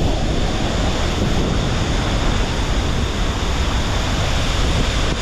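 A large waterfall close by, its water pouring down in a loud, steady rush.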